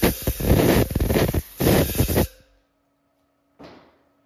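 Compressed-air blow gun hissing loudly in a few bursts as it blows chips out of the turned steel part on the lathe, stopping about two seconds in. A short rush of air near the end, with the lathe's faint steady hum underneath.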